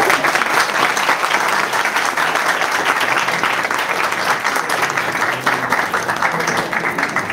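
Audience applauding: many hands clapping together, starting sharply and holding steady for about seven seconds before dying away.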